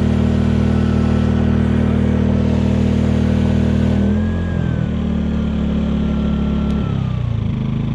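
Sportsman GEN2200DFi inverter generator's engine running on propane, steady at first. About four seconds in its speed drops and the pitch lowers a little, then it shifts again near the end.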